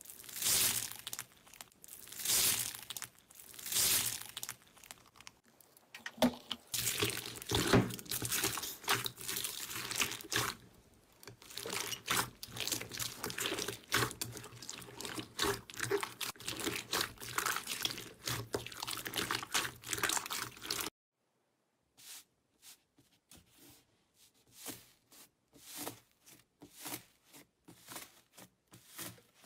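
Slime and foam beads crunching and crackling under kneading hands. First a hand presses into a bowl of foam beads in three slow swells of crackle; then bead-filled clear slime is squeezed in a dense run of crackles; after a brief silent cut about two-thirds through, foam-bead slime gives sparser, fainter pops and crackles.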